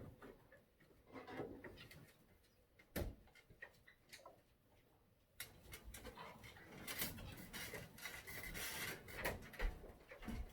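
Decorative items being handled and set down on a shelf: a single knock about three seconds in, then a longer stretch of rustling with scattered small clicks from about halfway through.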